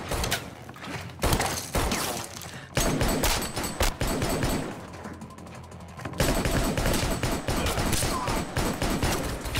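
Rapid gunfire from an 11.5-inch AR-15 rifle, many shots in quick succession, with a short lull about halfway through, echoing in stone tunnels.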